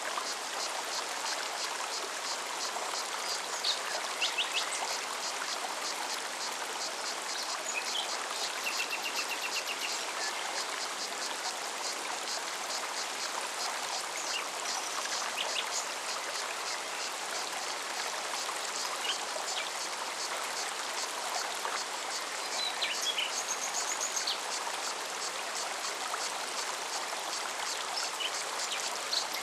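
Forest mountain stream running steadily over rocks, with a cicada singing in a rapid, even pulsing and a few short, high bird chirps scattered through.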